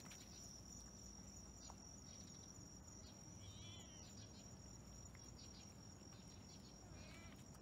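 Faint, steady high trilling of singing insects, with two faint short wavering calls, one about three and a half seconds in and one near the end.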